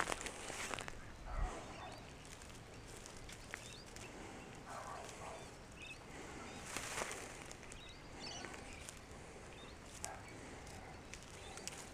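Short-beaked echidna foraging, faint rustling and scratching in dry leaf litter as it noses and digs for ants, with a few soft bird chirps.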